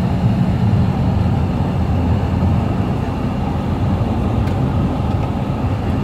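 Steady low rumble of a moving vehicle's engine and tyres on the road, heard from inside the cabin.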